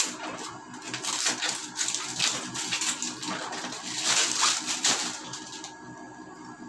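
Small cardboard box being handled and opened: a run of scraping, rustling rubs of cardboard against cardboard and fingers, dying down about five and a half seconds in.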